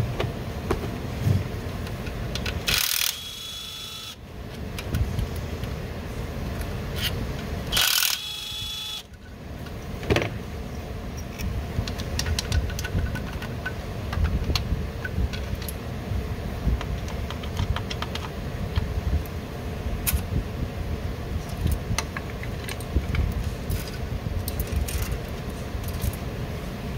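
Tools and metal parts clicking and clinking while cam phasers and timing parts are worked on in an open engine, over a steady low rumble. Twice, about three and eight seconds in, there is a louder noisy burst of about a second.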